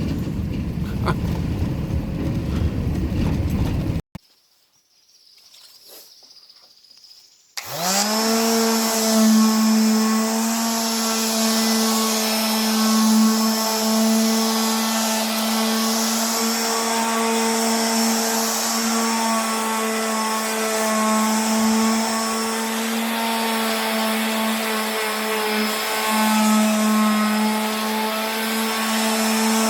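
Vehicle driving noise for a few seconds. Then, after a short hush, a motor spins up quickly and runs at a steady pitch.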